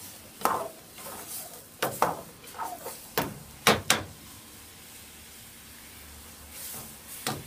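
Metal ladle knocking and scraping against a metal pan while stirring thick curry: a string of sharp clinks with a short ring, the loudest two close together about four seconds in, then a pause and one more clink near the end.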